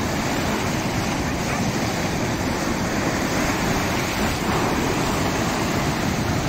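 Ocean surf breaking and washing over rocks: a steady rush of waves.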